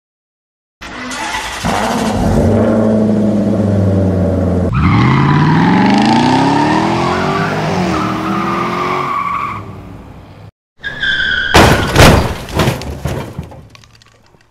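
Added sound effect of car engines racing, revving up and accelerating with a climbing pitch for several seconds. After a short break comes a brief tyre screech, then a run of crash impacts that fades out.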